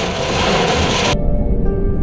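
Background music with steady held tones over the noise of wind and rain, which cuts off suddenly just over a second in, leaving the music alone with a deep low rumble.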